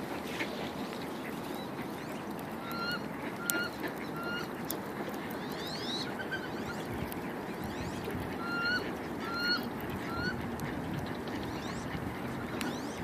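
A bird calling: short notes, each lifting in pitch at the end, in two sets of three spaced under a second apart and a pair near the end, over a steady background rush.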